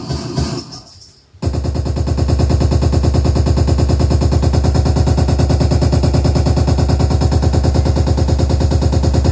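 Speakers on a sound-system test playing a DJ remix loudly. A short choppy musical phrase with brief dropouts gives way, about a second and a half in, to a rapid, even string of heavy bass hits, many a second.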